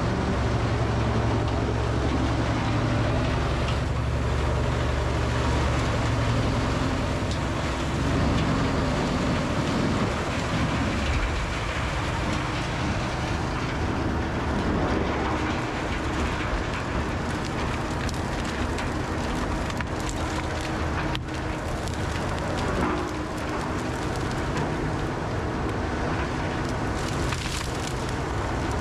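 Heavy equipment running steadily: the Rotochopper B66L wood grinder and the wheel loader feeding it. A strong low engine hum for the first several seconds gives way to a steady rushing, grinding noise.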